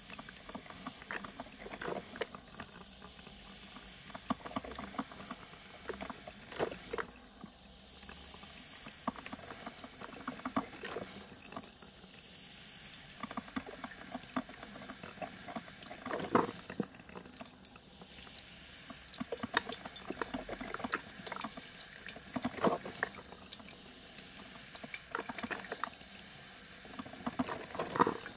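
Coffee machine brewing: water gurgling and sputtering in irregular spurts over a steady faint hiss.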